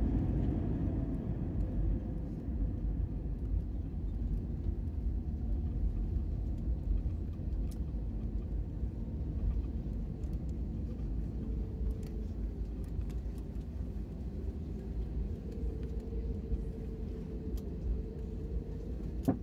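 Cabin rumble of an Airbus A320neo rolling out along a snow-covered runway after touchdown: a steady low rumble that eases a little after the first couple of seconds as the aircraft slows. A faint steady hum joins in near the end.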